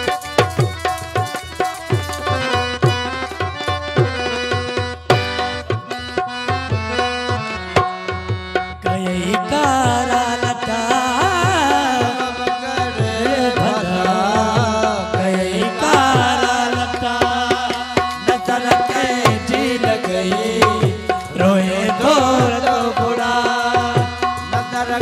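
Live folk music from a small ensemble: drums beating a steady rhythm under sustained melody tones, with a wavering, ornamented melody line joining about nine seconds in.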